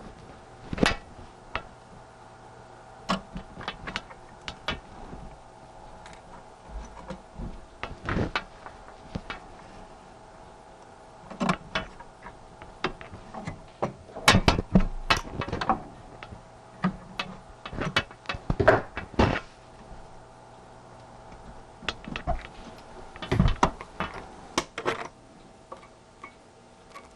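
Irregular clicks and knocks of antique longcase clock parts being handled and fitted, coming in clusters, over a faint steady hum.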